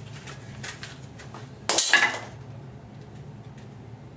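Light metallic clicks and one loud metal clank with a brief ring about two seconds in, from steel transmission parts being handled on a workbench.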